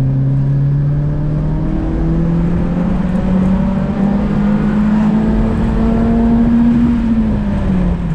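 Car engine pulling under acceleration, its pitch climbing slowly and steadily, then falling away near the end as the revs drop.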